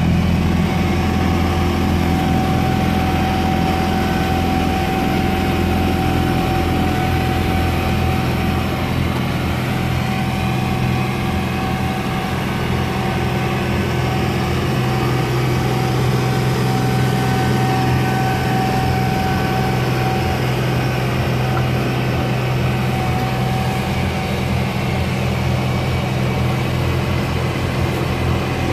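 Massey Ferguson 1736 tractor's three-cylinder diesel engine running steadily under load, driving a front-mounted, shaft-driven two-stage snow blower as it chews into snow and throws it out the chute. A thin steady whine rides over the engine and fades about two-thirds of the way through.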